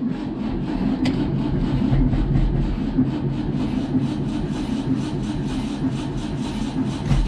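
1963 VW Beetle's air-cooled flat-four engine idling steadily.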